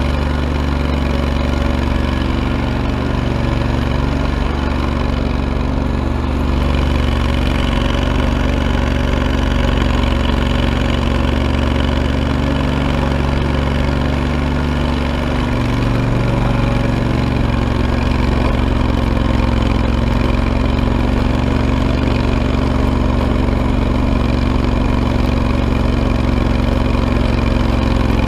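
Engine of an Ariens Grand Sierra riding tractor running steadily while the tractor pushes snow with a front plow blade. Its pitch shifts slightly about a quarter of the way in and again about halfway through.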